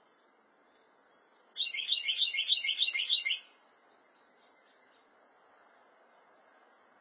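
Carolina wren singing a loud, rapid run of about eight repeated slurred notes that lasts about two seconds, over a background of insects chirping in short pulses.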